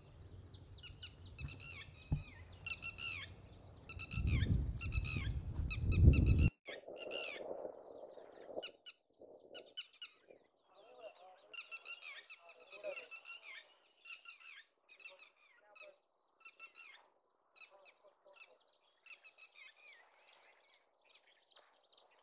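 Many birds calling in a chorus, with peafowl calling among them. A low rumble on the microphone grows for a couple of seconds and stops at a sudden cut about six and a half seconds in.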